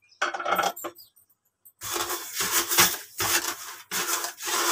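Granulated sugar poured into a plastic blender jar of falsa berries: a grainy hiss in a short burst, then a longer run of uneven bursts from about two seconds in.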